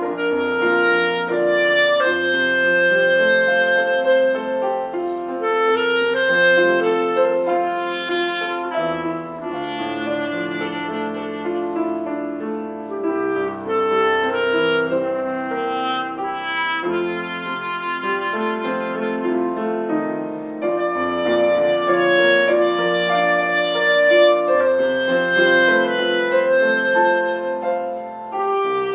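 A solo wind instrument plays a slow, sustained melody over piano accompaniment.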